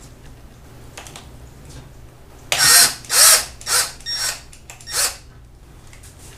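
Milwaukee cordless drill/driver run in five short bursts, driving a threaded screw-in anchor into drywall. The bursts begin about two and a half seconds in, the first rising in pitch as the motor spins up.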